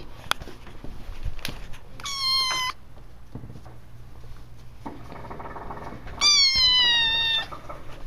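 Small black kitten meowing twice: a short, high meow about two seconds in, and a longer, louder one near the end that falls slightly in pitch.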